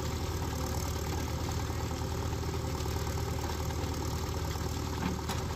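Diesel engine of a JCB backhoe loader running steadily with an even low beat, its bucket braced against a tractor sunk in mud. A short knock sounds near the end.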